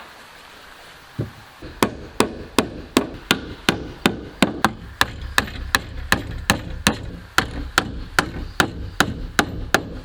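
Hammer striking wood in a quick, steady rhythm, about three blows a second, with a single knock just before the run starts.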